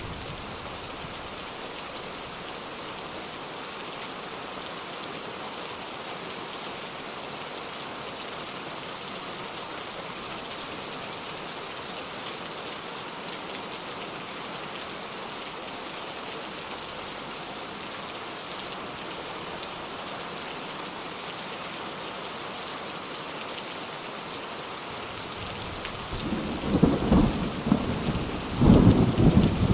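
Steady heavy rain hissing, then near the end a loud thunderclap rumbling in two surges, one after the other.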